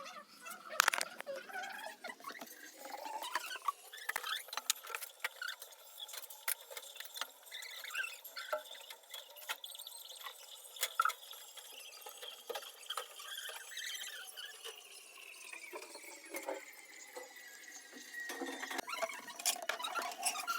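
Electric arc welding: the arc crackling and spitting in quick, irregular clicks. A faint high whine runs underneath and slowly drops in pitch in the later seconds.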